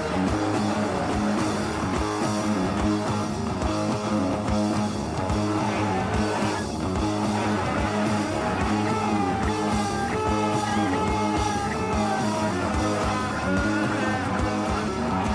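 Heavy rock track with electric guitars and drums, built on a dark riff, with a lead line sliding between notes in its second half.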